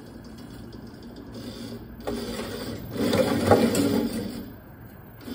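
Homemade tube-rolling machine's 36-volt electric motor driving the steel rollers through a chain, with a steel tube running between them. It starts about two seconds in, runs for about two and a half seconds and then stops. The rolling is way too fast.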